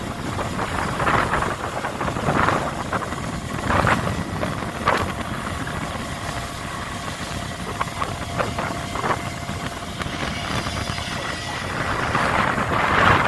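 A fishing boat's engine and deck machinery running steadily, with a few short knocks.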